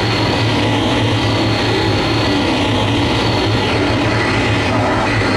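Live harsh noise music: a loud, unbroken wall of dense amplified noise over a steady low hum, with no beat and no breaks.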